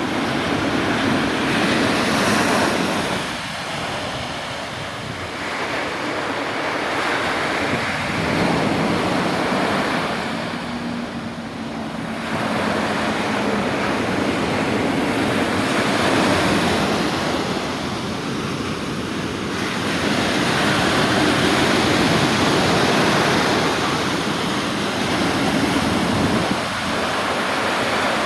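Stormy sea surf breaking and washing on a beach, rising and falling in swells every six or seven seconds, with wind over the microphone.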